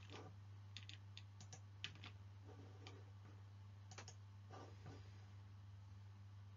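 Near silence: room tone with a steady low hum and a scattered handful of faint, brief clicks.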